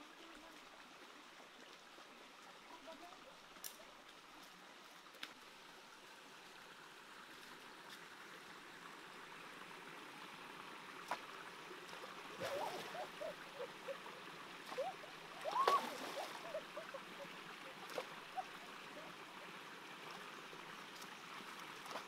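Stream water running steadily over rocks, with a run of splashes and gurgles in the middle as a long wooden pole is jabbed into the pool. A few sharp knocks are scattered through it.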